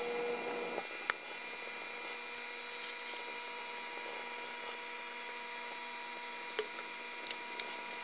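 Microwave oven running with bacon inside, played back sped up, so its hum becomes a steady higher drone. A few sharp pops from the cooking bacon stand out over it, one about a second in and several near the end.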